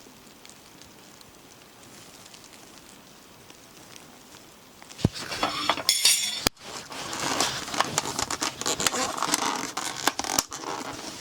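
Camping dishes and utensils being handled: clinks and knocks with rustling. They start about five seconds in, after a quiet stretch of faint steady hiss.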